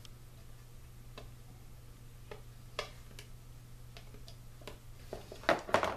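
Light, scattered clicks of a pointed metal awl pressing a glued leather lace end into the wraps of a wooden bow handle, closing the gap. There is a quick cluster of louder clicks near the end, over a steady low hum.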